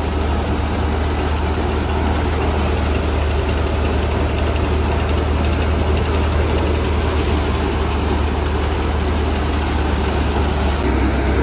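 Tractor diesel engine driving a paddy thresher, running steadily under load: a constant low engine hum under the thresher's steady noise as paddy is fed in.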